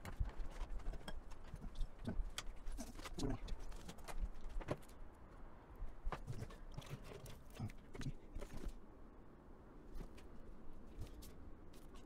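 Irregular light clicks, taps and knocks of cables and plastic connectors being handled against a PC case's metal frame, as front-panel header cables are routed and plugged into the motherboard.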